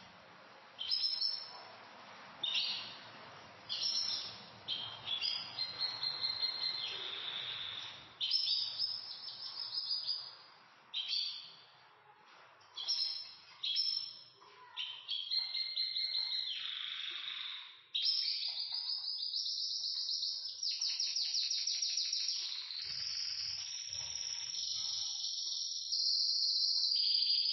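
Pet canaries singing: short chirping phrases repeated every second or so, then, from about two-thirds of the way in, a fast rolling trill that runs on without a break.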